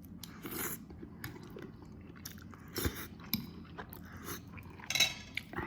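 A man chewing a bite of pan-cooked chicken egg, with scattered small mouth clicks.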